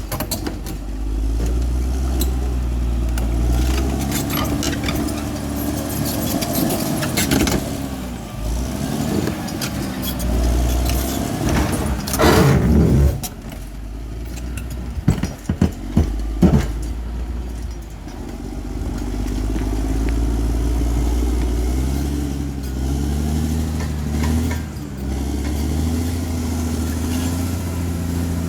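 Bulldozer diesel engine working under load, its pitch rising and falling, with metallic clanking and several sharp knocks about halfway through.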